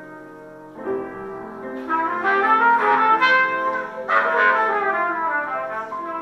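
Live small ensemble playing: a horn carries a bright melodic solo over grand piano accompaniment, with the playing growing louder about a second in and the horn's phrases loudest from about two seconds in.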